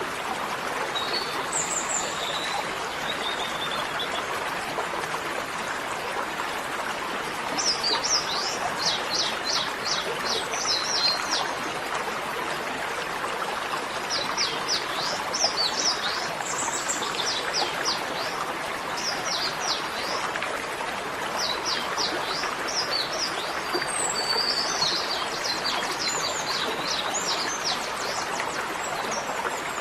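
Steady rushing of running water with birds singing over it: phrases of quick, high chirps that come every few seconds.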